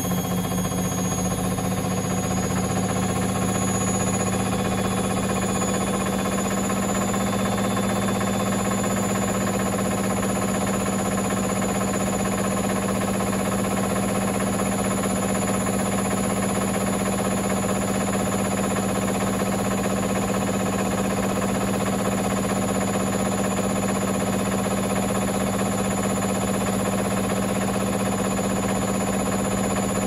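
Baumatic BDI1485D4E washer dryer running, a steady motor hum with fainter high whining tones, unchanging throughout.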